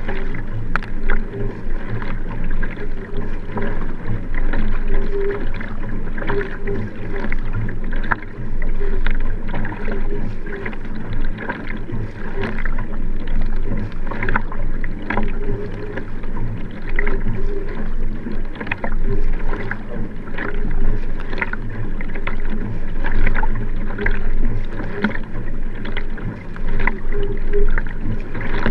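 Racing paddle strokes splashing on both sides of a Nelo Vanquish sprint kayak at race pace, with water rushing along the hull in rhythmic surges.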